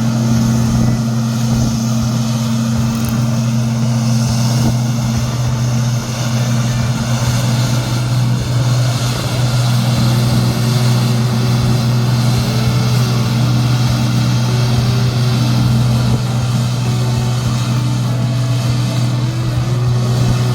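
Gleaner N6 combine running steadily while harvesting wheat: a constant low engine hum over the rushing noise of the machine.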